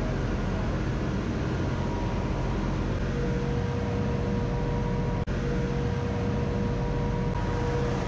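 Steady engine-room machinery noise on a ship: a constant low hum and hiss, with a faint steady whine coming in about three seconds in and a momentary break just past the middle.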